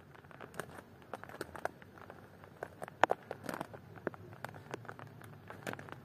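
Irregular light clicks and taps, with one sharper click about three seconds in.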